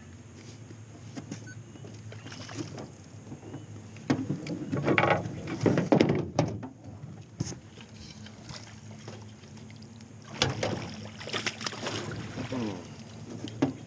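Scuffling and splashing in a jon boat as a fish is netted, with several sharp knocks, in two busy spells about four and ten seconds in.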